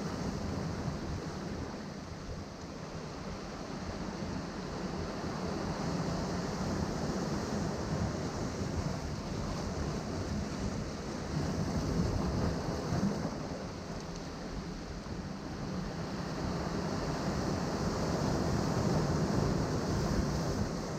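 Ocean waves breaking on rocks: a continuous wash of surf that swells and eases every few seconds, with stronger surges about halfway through and again near the end.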